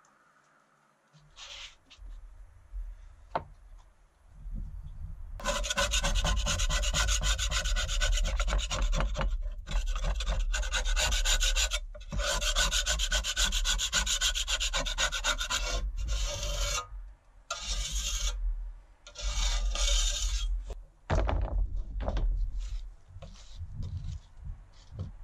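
A flat scraper scraping stripper-softened paint off steel machine parts, in long runs of quick strokes broken by short pauses and then in shorter scattered scrapes near the end.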